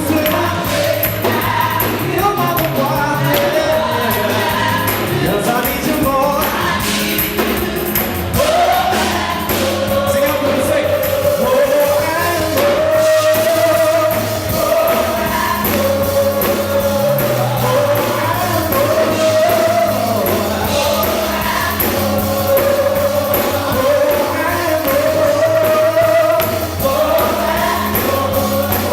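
Live gospel band playing, with singers holding long drawn-out notes over the accompaniment.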